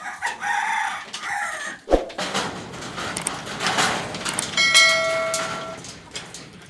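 A rooster crowing, ending on a steady held note of about a second, over a busy background noise; a single sharp thump about two seconds in.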